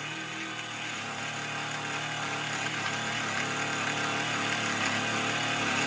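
Proxxon MF70 micro milling machine, its spindle driven by a brushless inrunner motor, running while a 6 mm end mill cuts aluminium about 2 mm deep. A steady motor whine blends with the cutting noise, which grows gradually louder. The motor's running noise is much lower than it was with the outrunner it replaced.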